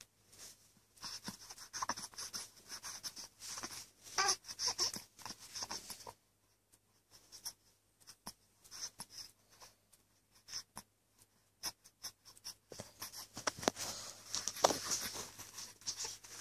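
A baby making small breathy noises and brief squeaks in short spurts, with rustling and scratching in between.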